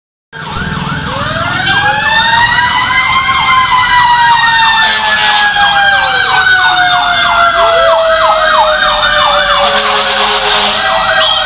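Fire truck sirens: a fast yelp warbling about three times a second, layered with a long wail that rises for the first few seconds and then slowly falls. Both start suddenly just after the start and stay loud throughout.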